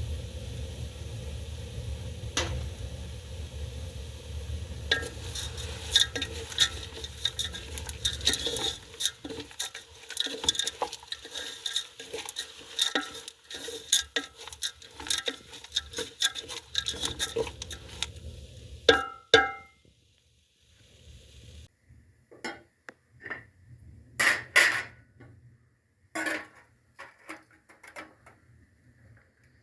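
A metal spoon clattering and scraping in a pot as food is stirred, over a low steady hum in the first few seconds. Two ringing metal knocks come about two-thirds of the way in, then after a brief silence a few scattered knocks and clinks.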